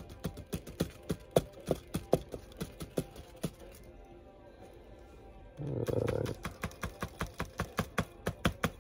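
A hard plastic model car being tapped rapidly, about five or six sharp taps a second, to knock loose excess flocking fibres. The tapping pauses for a couple of seconds in the middle, and a short low hum comes around six seconds in.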